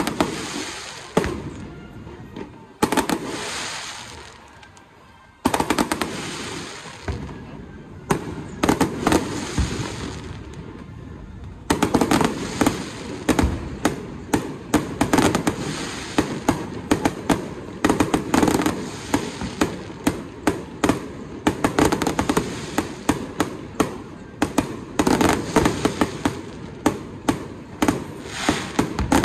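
Fireworks display: a few single loud bangs, each fading away over a couple of seconds, then about twelve seconds in a dense, rapid barrage of pops and crackles.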